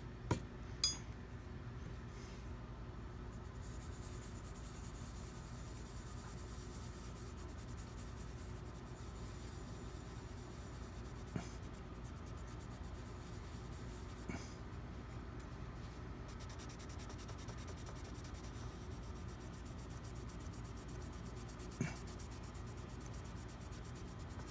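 Faint rubbing of a small rag with polishing compound on a metal saxophone mouthpiece's black bite plate, polishing out fine steel-wool scratches. A few light clicks, the sharpest about a second in.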